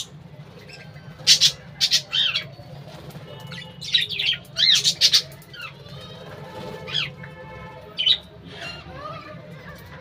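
A flock of budgerigars with a cockatiel chattering and squawking, with loud, sharp calls in clusters about a second in, around four to five seconds, and again near seven and eight seconds, over softer warbling chirps. A steady low hum runs underneath.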